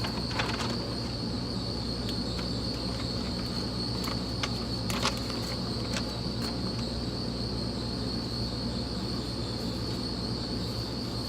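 Steady high-pitched insect buzzing over a low hum, with a few faint short clicks about halfway through.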